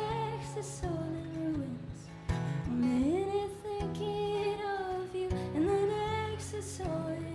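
Live acoustic guitar with a woman's voice singing a wordless melody in long held notes that slide smoothly between pitches.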